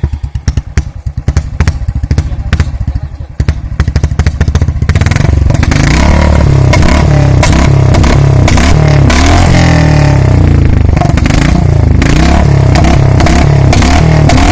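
Royal Enfield Thunderbird 350X single-cylinder engine through a short-bottle aftermarket silencer, revved for exhaust pops and crackles (a 'pataka' backfire test). Sharp pops over a thumping idle at first, then from about five seconds in it is held louder and steady with a rapid string of cracks from the exhaust.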